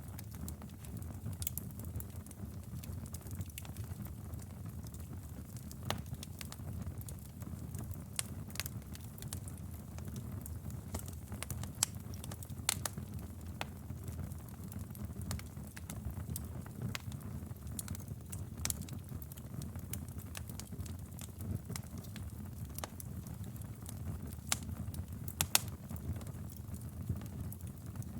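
Wood fire crackling steadily over a low rumble of the flames, with irregular sharp pops and snaps, a few louder ones about 12, 13 and 25 seconds in.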